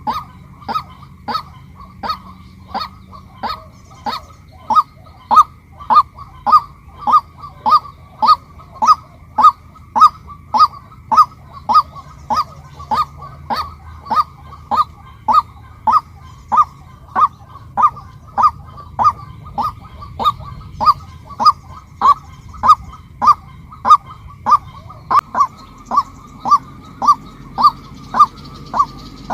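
White-breasted waterhen (female) calling: a single short, loud note repeated at a steady, even pace of roughly one and a half to two a second.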